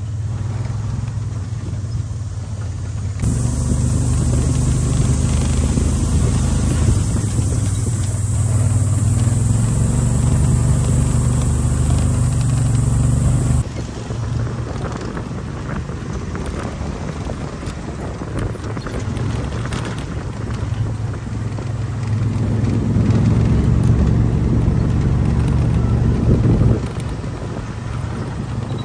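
Vehicle engine running steadily as it drives along. The sound changes abruptly twice, getting louder about three seconds in and dropping about halfway through, then swells again for a few seconds near the end.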